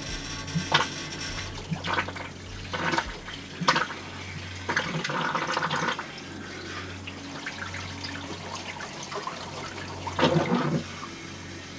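Hot-water heating loop being purged at the boiler: water rushing through an opened purge valve in irregular gushes, over a steady low hum.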